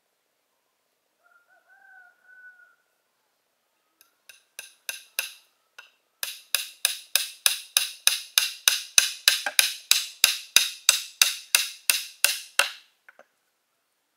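A tool striking bamboo: a few separate knocks, then a steady run of sharp, ringing strikes about three a second, which stops short.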